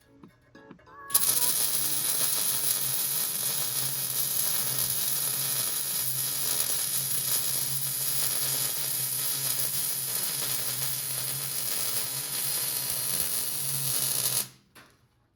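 MIG welding arc running steadily as a bead is laid: a dense, crackling sizzle over a low hum. It starts about a second in and cuts off sharply near the end.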